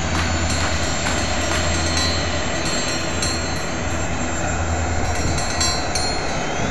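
Small turbine engine of a radio-controlled model jet running steadily while the jet taxis, a loud even hiss. Near the end a high whine begins to rise in pitch.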